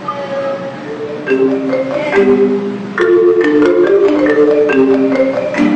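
Mobile phone ringtone playing a quick marimba-like melody, starting softly about a second in and getting louder about three seconds in.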